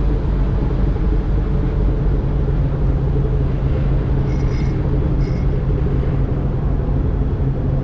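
Fishing boat's engine running steadily under way while trolling, a constant low drone. Two brief high-pitched sounds come a little over halfway through.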